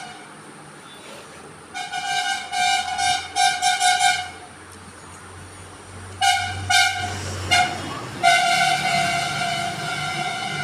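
A loud horn sounding at one steady pitch: a run of short blasts, then three quick toots, then one long blast of about three seconds near the end, over a low rumble.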